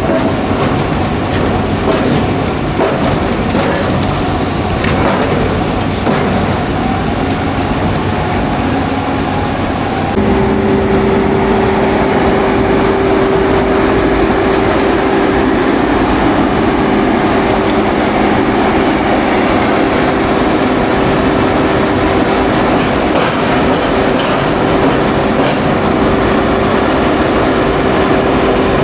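Heavy construction machine running loudly and steadily, with rattling and clanking. About ten seconds in, the sound changes abruptly and a steady hum comes in and holds.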